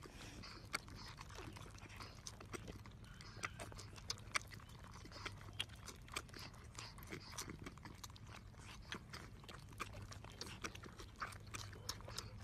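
Baby wombats and kangaroo joeys suckling on milk bottles: faint, irregular wet clicks and smacks of sucking at the teats, over a low steady hum.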